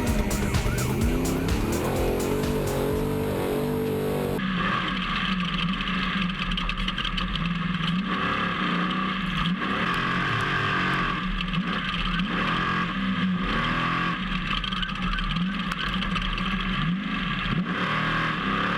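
Trophy truck engine running hard, its revs rising and falling again and again, with music playing over the first four seconds until a sudden cut.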